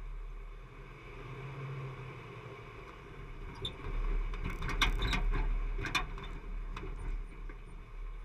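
Jeep driving slowly over a rocky dirt trail, heard from a camera on its front bumper: a steady low rumble, with a run of knocks and clunks from about four to six and a half seconds in as it jolts over rough ground.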